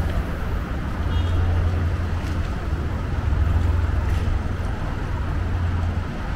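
City street ambience at night: a steady low rumble of urban and traffic noise, with faint distant voices.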